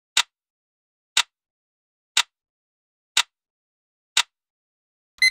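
Countdown timer sound effect: five sharp ticks, one a second, then near the end a short, high electronic ringing beep that pulses about three times.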